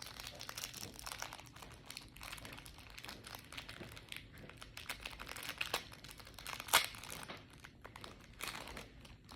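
Plastic packaging crinkling and crackling as it is handled and pulled open, with one sharper crackle about seven seconds in.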